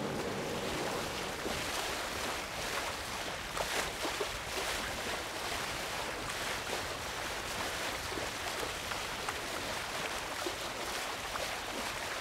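Sea water rushing and splashing alongside a sailing ship under way: a steady rush broken by many small splashes, with wind.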